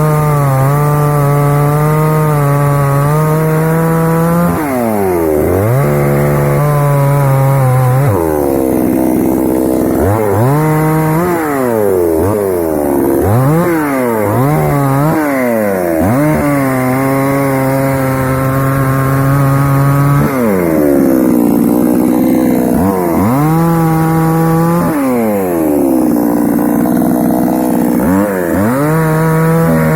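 Start Pro petrol chainsaw's two-stroke engine running loud, held at high revs for several seconds at a time and repeatedly dropped to idle and revved back up, with no cutting heard.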